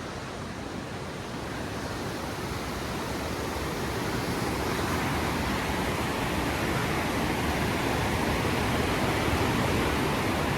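Waterfall rushing: a steady, dense rush of falling water that grows slowly louder over the first few seconds, then holds.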